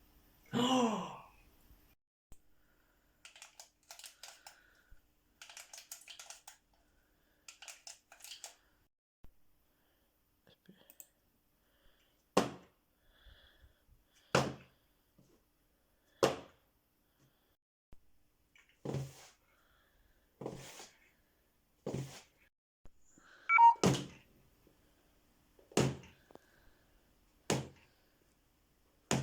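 A short vocal sound with a falling pitch, then scattered faint clicks, then a series of about nine separate thunks spaced roughly two seconds apart in a small room: objects being struck one at a time for Foley sound effects.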